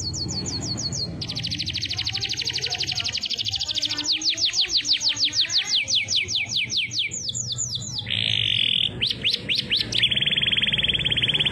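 Pet canary singing a long, fast song: rapid rolled trills alternating with runs of quick downward-sweeping whistles, then a steady buzzing roll in the last few seconds.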